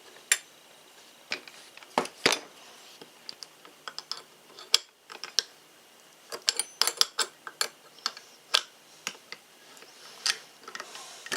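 Irregular clicks and light metal knocks as the disc's lock nut on a Ryobi 18V ONE+ 4-1/2 in. angle grinder is tightened with its spanner wrench, the spindle lock held down. The clicks come thickest in a quick run a little past the middle.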